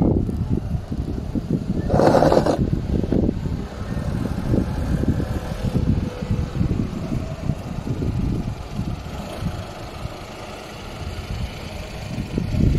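Ford EcoSport driving slowly over dry, rutted dirt close by, with its engine running as a low, uneven rumble. A louder rush comes about two seconds in.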